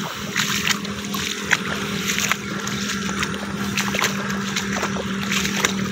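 Footsteps wading through shallow muddy floodwater, sloshing and splashing with each stride, over a steady low hum.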